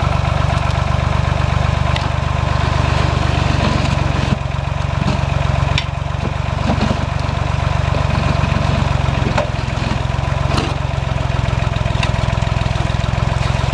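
Small Ford tractor's engine running steadily while it powers a three-point-hitch backhoe, with a few sharp knocks scattered through.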